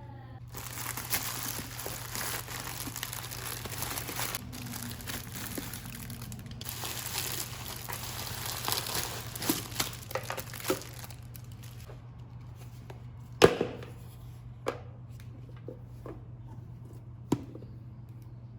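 Plastic packaging crinkling and tearing as an online-shopping parcel is unwrapped. It stops about two-thirds of the way through, followed by three sharp knocks, the first the loudest, over a steady low hum.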